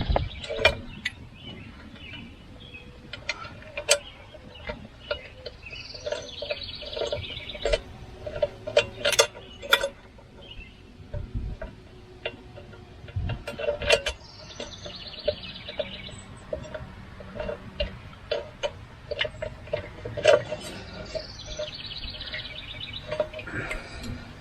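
Irregular metallic clicks and clinks of hand work, bolts being fitted to a tractor's PTO slip clutch. A songbird sings a short rapid trill three times.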